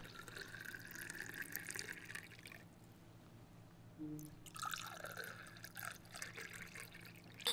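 Arak poured from a small glass carafe into small shot glasses, in two pours with a pause between them. A short sharp clink comes right at the end.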